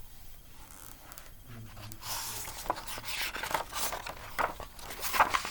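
Paper rustling and crackling as a picture book's pages are handled and turned, with a brief low voice sound about a second and a half in.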